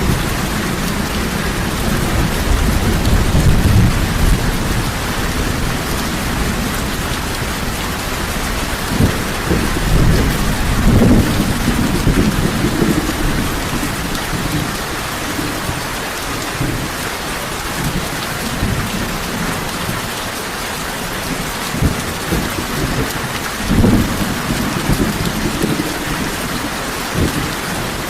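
Heavy rain falling steadily, with low thunder rumbling. The rumbling swells a few seconds in and again around ten seconds in, and a few short, deep thumps follow later.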